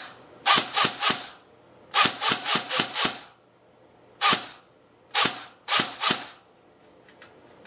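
Airsoft rifle firing pellets in quick strings and single shots, about a dozen in all, each a sharp crack: a burst of three, a string of five, then single shots and a final pair.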